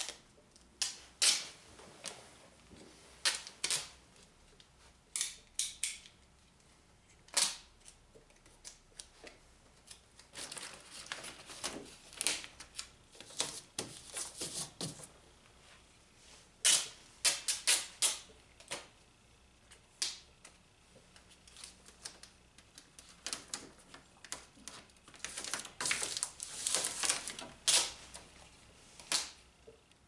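All-weather tape being pulled off the roll in rasping strips and torn, with the plastic door vapor barrier crinkling and crackling as it is pressed flat. The sounds come as irregular sharp clicks and crackles with several longer rasps.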